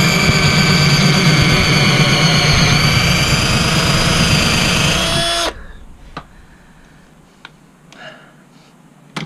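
Cordless drill motor running at speed for about five and a half seconds, then released, its pitch dropping as it stops. A few faint knocks follow.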